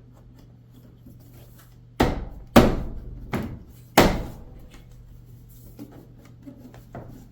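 Four sharp knocks within about two seconds, then a few faint clicks: dryer cabinet panels being knocked and snapped into place during reassembly.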